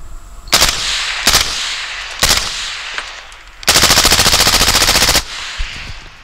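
Suppressed full-auto AR-pattern machine gun firing steel-case ammunition: three short bursts, then a longer string of about a second and a half at a steady rapid rate. The gun cycles without a stoppage.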